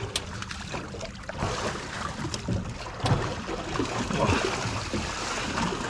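Water sloshing and splashing around a small aluminium boat with people swimming beside it, over a steady hiss of wind and water, with a few light knocks.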